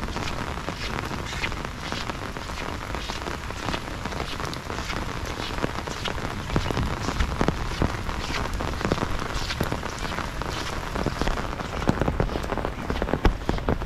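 Heavy rain falling steadily, with many sharp drop hits close by.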